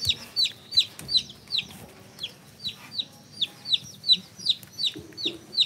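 Domestic chicks peeping: a rapid series of loud, high-pitched peeps, each sliding downward, about two to three a second.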